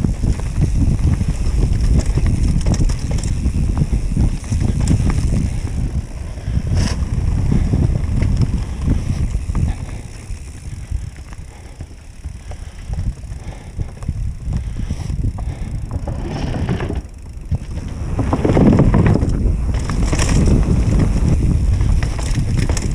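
Mountain bike descending a dirt trail, heard from a camera on the bike: a dense low rumble of tyres and wind on the microphone, with the bike rattling and knocking over bumps. It eases off for a few seconds in the middle and is loudest and roughest again shortly before the end.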